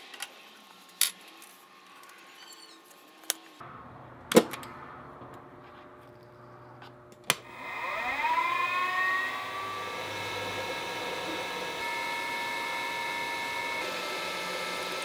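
A few sharp metallic clicks and knocks as the mill's drill chuck is handled, then about seven seconds in the variable-speed Precision Matthews PM-30MV mill's spindle motor starts with a rising whine and settles into a steady run while a small bit drills into the bronze knife handle.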